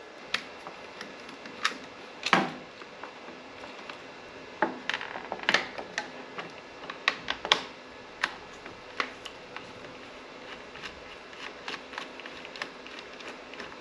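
Irregular clicks and light taps of hand tools and small parts being handled during motorcycle wiring work, a few sharper knocks among them.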